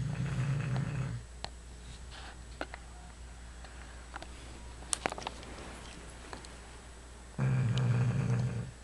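Bulldog snoring: two long, low snores, one ending about a second in and the next starting near the end, with a few faint clicks in the quiet between breaths.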